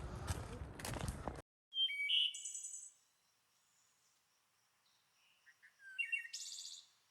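About a second and a half of footsteps and rustling that cuts off abruptly, then songbirds calling: a short burst of song about two seconds in and another about six seconds in, with quiet between.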